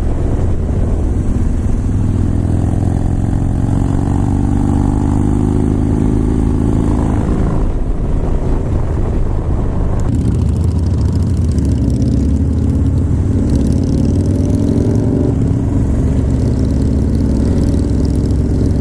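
Harley-Davidson Dyna Street Bob's V-twin engine running on the move. Its pitch climbs for several seconds, drops away about eight seconds in, and climbs again from about twelve seconds.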